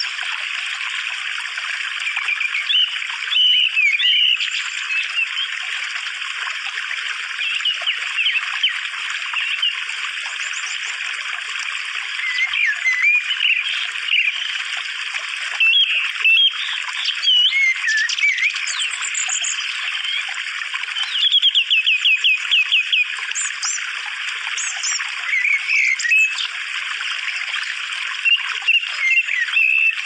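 Small birds chirping and singing at intervals over a steady trickle of running water, with a quick run of repeated notes about two-thirds of the way through.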